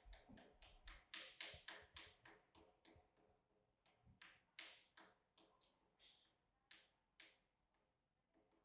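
Spinning prize wheel ticking as its rim pegs flick past the hanging pointer, the ticks quick at first and growing further apart as the wheel coasts down, the last one coming near the end.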